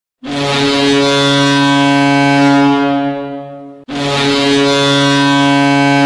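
Ice hockey arena goal horn: a low, steady ship-style horn blast that fades out after about three and a half seconds, followed at once by a second blast.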